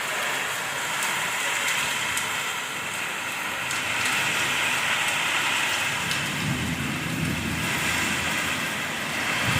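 Heavy rain pouring down in a storm: a steady hiss with fine drop patter. A low rumble swells for a couple of seconds past the middle.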